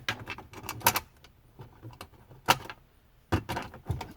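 Small hardware and hand tools being handled: a run of sharp clicks, knocks and light metallic rattling as the Phillips screws are picked up and set back into the console, with the loudest knocks about a second in, about two and a half seconds in, and near the end.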